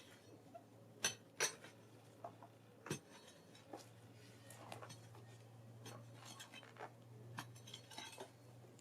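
Faint, scattered light clinks and knocks, a few strong ones about a second in and near three seconds, over a steady low hum.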